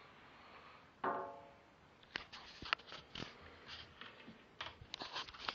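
Household clutter being handled and shifted on a shelf: a run of light clicks and knocks from about two seconds in. A short pitched tone sounds about a second in.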